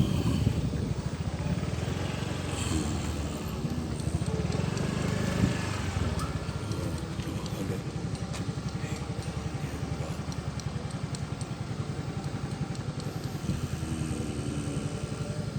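Motorcycle engine running steadily, with a fast, even low pulse that is a little louder in the first few seconds.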